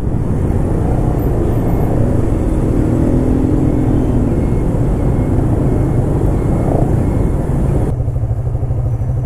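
Honda Winner 150 motorcycle being ridden, its single-cylinder engine and road noise running steadily under a heavy low rumble. About eight seconds in, the sound suddenly turns duller as the higher part drops away.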